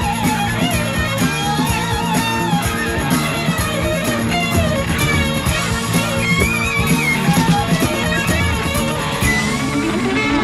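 Background music: a guitar-led rock track with a steady beat and a wavering lead melody.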